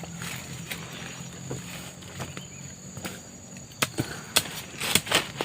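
Scattered sharp knocks and clicks, several louder ones close together near the end, over a faint steady high insect drone.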